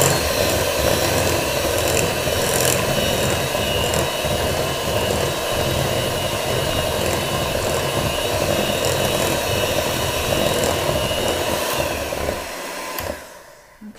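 Electric hand mixer running steadily, its beaters churning egg yolks into creamed shortening and sugar in a bowl. It is switched off about a second before the end.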